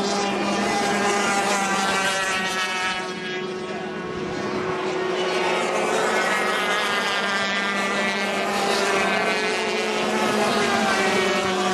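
Racing powerboats' 350cc two-stroke outboard engines running flat out: a steady high-pitched whine from several boats at once, the engine notes shifting slightly as they pass. The sound dips briefly a few seconds in and then swells again.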